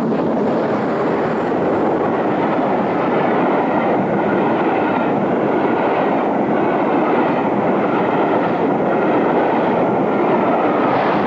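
A Great Western King-class steam locomotive passes close by at the head of an express, and its coaches roll by behind it. The sound is a loud, steady rushing train noise.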